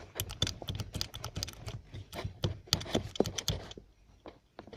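Quick irregular knocking and clacking from a Toyota Land Cruiser Prado 120 steering column as the steering shaft is worked back and forth by hand, with a brief pause near the end. The knock comes from play in the column shaft's worn fluoroplastic (PTFE) bushing.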